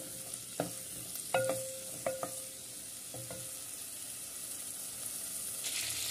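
Green chillies sizzling in hot oil in a clay pot, stirred with a wooden spoon that knocks against the pot's side about five times, each knock with a short ringing tone. The sizzle grows louder and fuller near the end.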